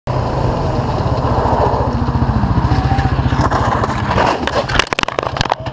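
Vehicle engine running steadily, then a quick series of sharp knocks and clatter about four and a half seconds in.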